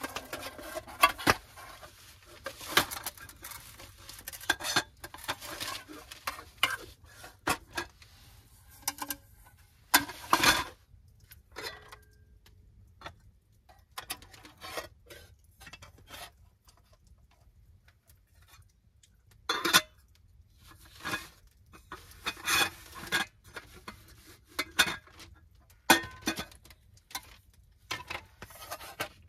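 Irregular clinks, knocks and rustles of things being handled close by, coming in short clusters with pauses between them and a quieter stretch a little past the middle.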